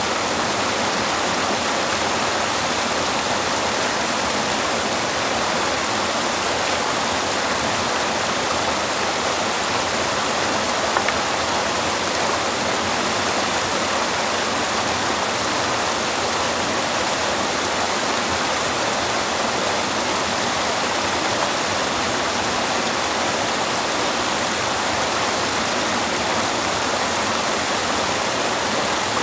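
Steady rushing water noise, even and unbroken.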